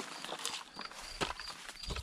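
Footsteps and rustling through dry leaves and brush, with a short high chirp repeating about three times a second and a low bump near the end.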